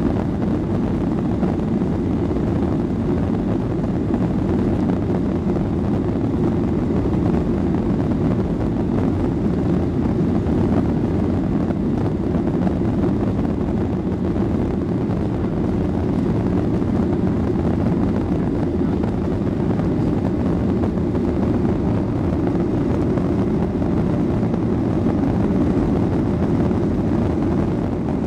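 Boeing 737 jet engines at takeoff thrust, heard from inside the passenger cabin as a steady low drone with airflow noise, through the takeoff and initial climb.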